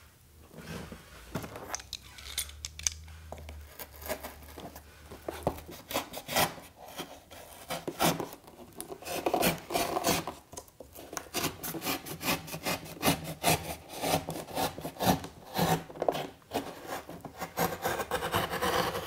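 Corrugated cardboard rubbing, scraping and crackling under hands as a cardboard covering strip is pressed and fitted onto a curved cardboard edge. The scratches come irregularly and grow busier about a third of the way in.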